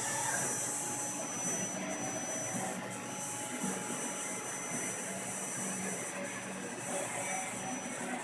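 Tsugami BS26B CNC Swiss-type lathe running under power: a steady mechanical whir with a thin, constant high whine.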